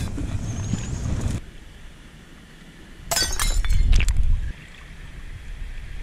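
Wind and water noise from a kayak on the sea. About three seconds in come a second and a half of clattering knocks over a low rumble, with the steady noise returning after them.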